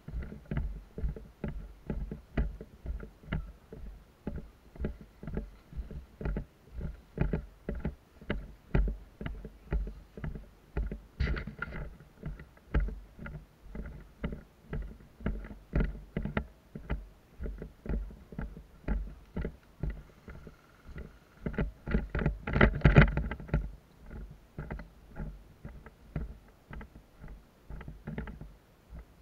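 Footsteps walking on a leaf-strewn dirt path and grass, a low thump at each step, about two steps a second. A louder burst of noise comes about three-quarters of the way through.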